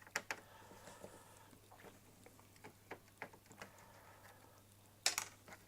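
Light clicks and taps of plastic scanner parts being handled during disassembly, a few scattered at first, then a quick cluster of louder clicks near the end.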